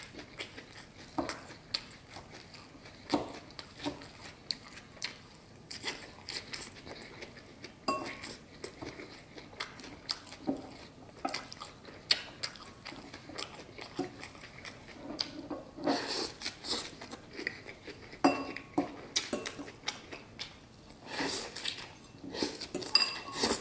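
Close-miked chewing and crunching of leafy salad greens, with a metal fork clicking against a ceramic salad bowl between bites. The crunching comes in short, irregular bursts and gets busier past the halfway mark.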